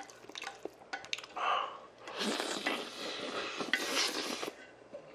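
Chopsticks clicking against a stainless steel bowl, then about two seconds of loud slurping as spicy mixed buckwheat noodles (bibim makguksu) are sucked straight from the bowl held to the mouth.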